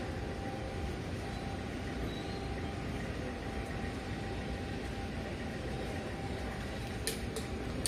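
Cat eating wet fish food from a plate, with two short sharp smacking clicks of its chewing near the end, over a steady low rumble of background noise.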